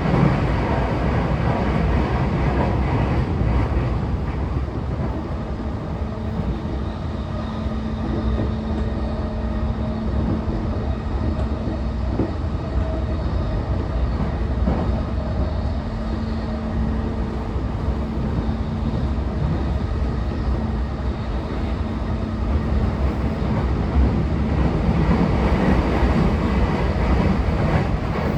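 Interior of a JR East E233-5000 series electric train's motor car running at speed: a steady, loud rumble of wheels on rail, with a thin humming tone that fades in and out in the middle.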